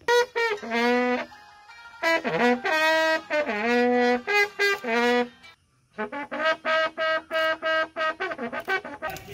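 A bugle call played as a military funeral honour: long held notes in two phrases, a brief break, then a run of short quick-tongued notes.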